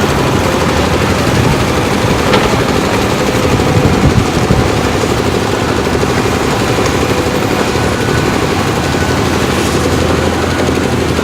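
Cat 320D excavator's diesel engine running loud and steady with a rapid low throb, a sharp click about two seconds in.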